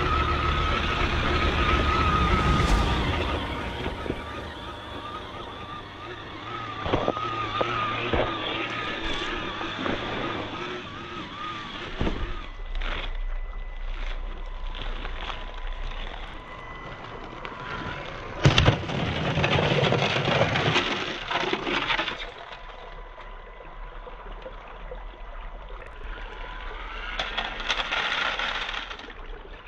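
Traxxas TRX-4M RC crawler's electric motor whining with the throttle as the small truck drives on ice, with scattered sharp cracks and knocks. A loud scraping burst comes about two-thirds of the way in.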